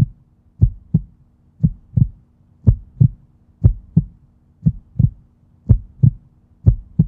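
Heartbeat sound effect: paired thumps like a lub-dub, about one pair a second, repeating evenly over a faint steady hum.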